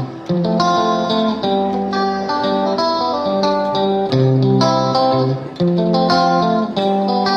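Background music: a plucked guitar tune with short notes changing at a steady pace.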